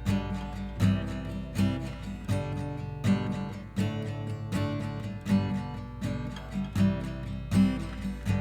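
Instrumental song music led by a strummed acoustic guitar, with strong strokes about every three-quarters of a second and no vocals.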